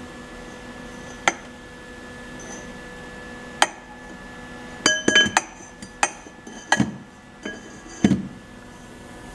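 Steel tubing and fittings of a homemade tubing bender clinking and knocking together as the parts are handled: a few single sharp clinks, then a quick run of knocks with a short metallic ring about five to eight seconds in.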